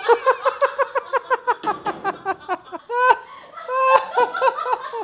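A woman laughing hard: a long run of rapid, high-pitched 'ha-ha-ha' pulses, about five or six a second, broken about three seconds in by a brief rising squeal before the laughing goes on.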